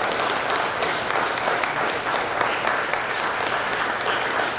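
A room of guests applauding, many hands clapping together, steady throughout.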